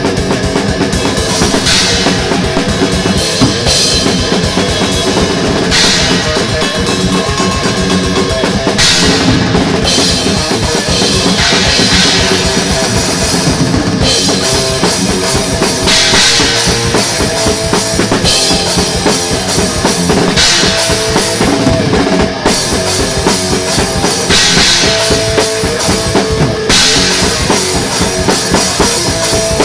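Instrumental passage of a thrash metal song: a drum kit pounds out fast bass drum and snare hits under a dense band of sustained pitched sound, with cymbal crashes every few seconds.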